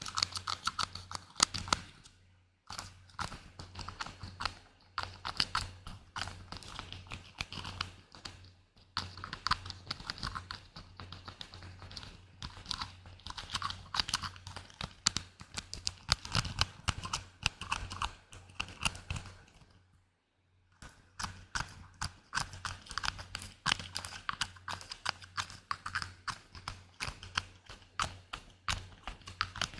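Rapid close-miked ASMR tapping: a dense run of light clicks and taps, pausing briefly about two and a half seconds in, near nine seconds and around twenty seconds.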